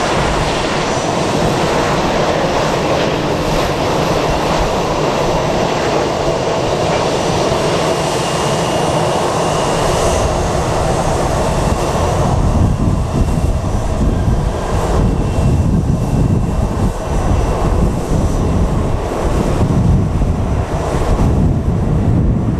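Boeing 737-800 jet engines running on final approach, a steady jet noise with a faint high whine. About twelve seconds in, at touchdown, the sound turns deeper and louder as the jet rolls out on the runway.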